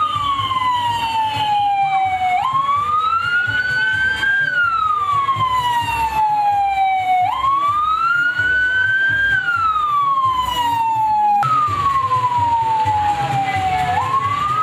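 Police pickup's siren wailing in a slow repeating cycle. The pitch falls for about two and a half seconds, jumps up, then climbs for about two seconds before falling again, roughly every five seconds. A low pulsing rumble runs underneath.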